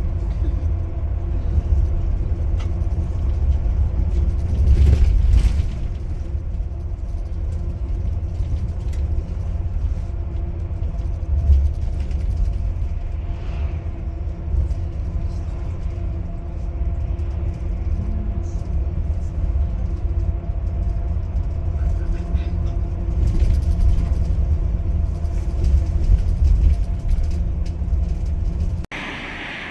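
A motor vehicle's engine running with a deep, steady rumble and a steady hum above it. Near the end it cuts off abruptly into a quieter, different sound.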